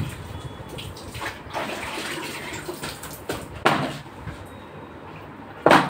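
Water splashing and sloshing, with several short, louder splashes.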